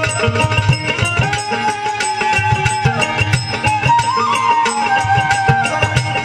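Instrumental interlude of a Bengali Baul folk ensemble: a bamboo flute plays a melody of long held notes with a short ornament about four seconds in, over a steady hand-drum beat and small cymbals ticking in time.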